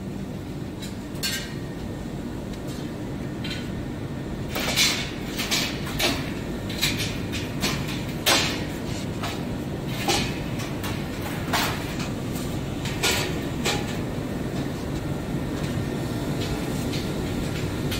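About a dozen irregular metal clanks and knocks as parts of a vacuum coating machine's main valve are handled inside its steel housing, the loudest about five and eight seconds in, over a steady machinery hum.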